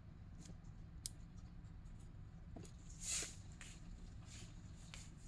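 Quiet room tone with a steady low hum, a single light click about a second in, and a brief hiss about three seconds in.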